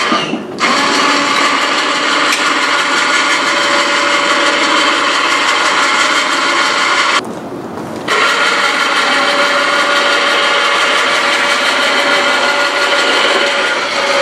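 Battery-powered electric winch motor running with a steady whine as it pays out cable to lower the loaded lift platform. It stops for about a second midway, then runs again.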